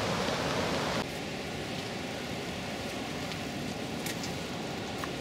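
Steady rushing noise of river water pouring over a weir, mixed with light rain falling, turning a little softer about a second in, with a few faint ticks.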